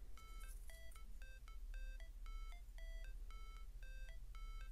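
Quiet background music: a plinking melody of short electronic notes, about four a second, over a low steady hum.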